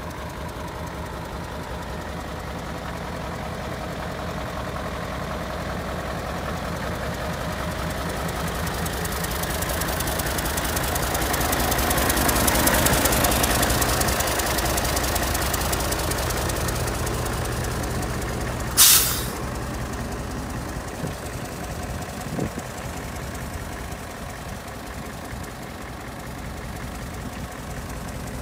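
Mitsubishi Fuso Great's 8DC11 V8 diesel idling steadily, growing louder toward the middle and easing off after. About two-thirds of the way through, a short sharp hiss of compressed air from the truck's air brake system venting.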